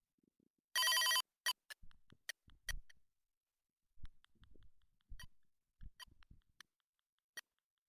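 Chicco Globetrotter toy telephone's electronic ring sounding once, briefly, about a second in, followed by a string of irregular clicks and knocks.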